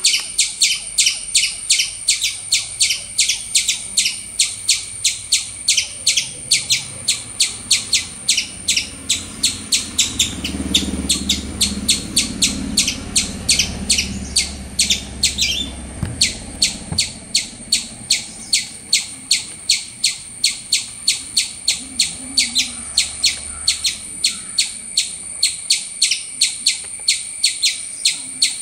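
Eastern gray squirrel call: a long, steady series of short, high-pitched chirps, about three a second.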